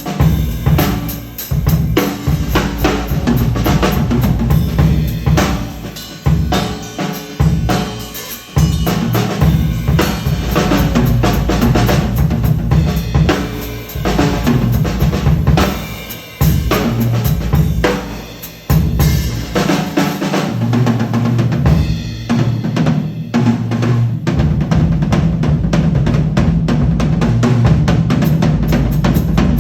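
1972 Ludwig Thermogloss drum kit with a Ludwig Jazz Festival snare drum being played in continuous grooves and fills, bass drum and snare prominent, with a couple of brief pauses.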